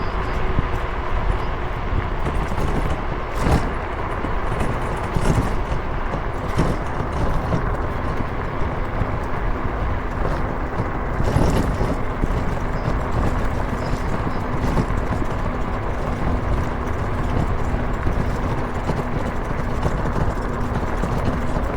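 A car driving along a road: steady road and engine noise, with a few brief knocks.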